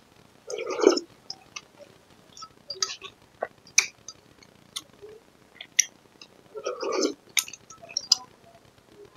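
A spoon clinking against a cut-glass bowl as it scoops up lod, the soft green rice-flour noodles of the Cambodian dessert, in a string of short sharp clinks. Two longer wet slurps of the noodles being eaten come near the start and again about two-thirds of the way through.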